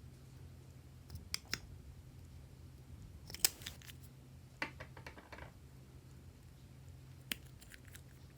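Butter slime being pressed and worked by hand, giving scattered sharp sticky clicks and pops, with a short crackly run of them about halfway through.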